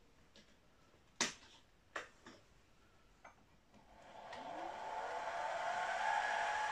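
A few light clicks, then about four seconds in the milling machine's spindle motor starts: its whine rises in pitch as it spins up and settles to a steady tone, ready to drill a small hole.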